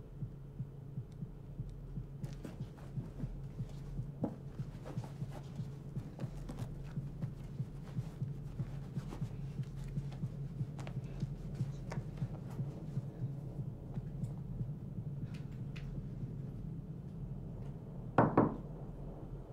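Tense film soundtrack: a heartbeat-like pulse about twice a second over a steady low hum. Near the end comes a short, loud burst of a few quick knocks.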